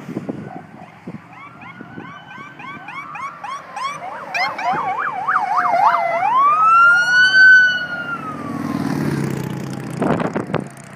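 Police car sirens passing: a fast yelp and a slower wail overlap. The wail sweeps up about six seconds in and then falls away. It is followed by the low rumble of passing vehicle engines.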